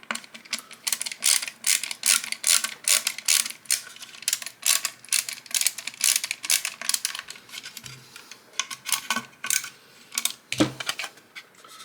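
Screwdriver with a hex bit adapter turning a 20 mm bolt into its nut through a 3D-printed plastic part: a quick run of small clicks and rattles that thins out near the end.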